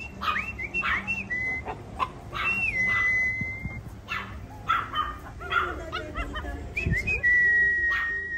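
Small Chihuahua-type dogs yipping, with many short high whistle-like notes and two long held ones.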